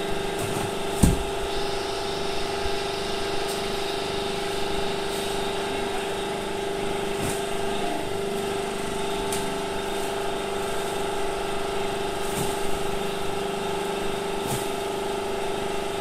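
Hydraulic waste-paper baling press's power pack, its electric motor and hydraulic pump running with a steady hum, while waste paper and cardboard are loaded into the chamber. A few short knocks come through, the loudest about a second in.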